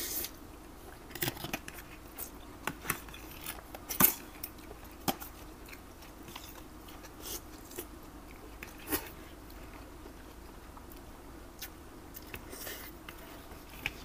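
Close-miked eating of a spicy glass-noodle seafood salad: wet chewing and smacking, broken by scattered short crunches and clicks, the loudest about four seconds in.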